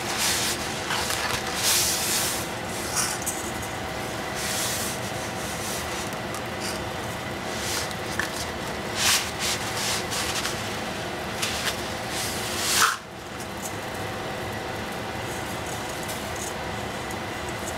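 Dry angel hair pasta rustling and scraping as it slides out of a cardboard box and against the rim of a stainless steel saucepan, with short clicks and one louder scrape about three-quarters through, over water boiling steadily in the pot.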